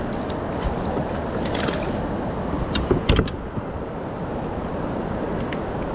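Steady wind and water noise around a fishing kayak, with a couple of brief knocks or splashes about three seconds in.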